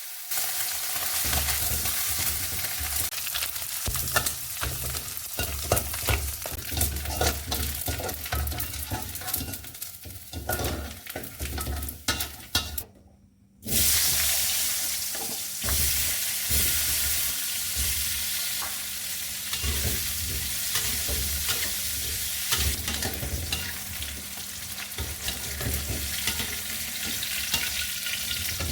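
Food sizzling as it fries in hot oil, with a spatula clicking and scraping against the pan as it is stirred. The sizzle breaks off for a moment about thirteen seconds in, then carries on.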